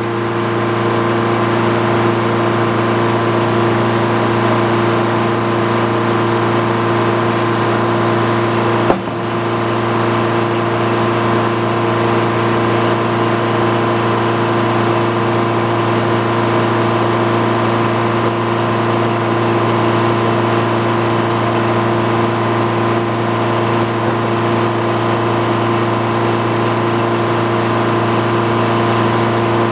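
Portable sawmill's engine running steadily at one speed, with a single sharp knock about nine seconds in.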